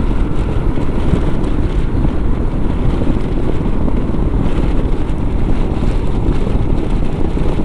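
Wind rushing over the microphone of a moving motorcycle, with the steady drone of the bike, a Royal Enfield Himalayan, and its tyres underneath. The noise stays steady and deep throughout.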